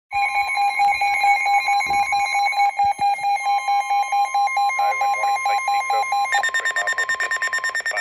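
Several weather alert radios sounding a severe thunderstorm warning at once: overlapping rapid electronic beeps from different units over the steady weather radio warning tone. About six seconds in, the beeping switches to a higher, faster pattern.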